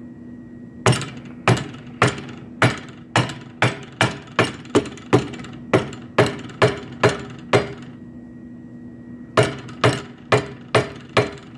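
Mallet blows on a Cerrobend-filled brass tube clamped in a vise, bending it into an S-shaped brace; the low-melting alloy fill keeps the tube from kinking. A steady run of about fifteen sharp blows, roughly two a second, then a pause of nearly two seconds and about five more.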